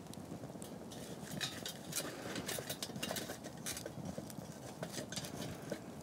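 Steel pot-support rods being fitted across the top of a stainless-steel Firebox stove, a run of light metallic clicks and clinks as they slide into place, with the wood fire crackling in the stove.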